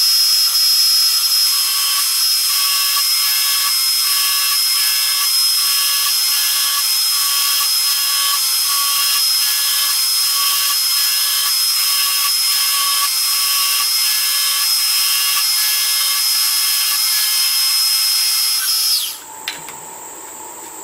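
CNC milling machine spindle running with a steady high whine as a 3 mm carbide end mill cuts a slot in metal, with a faint regular pulse about once a second. Near the end the spindle winds down and stops.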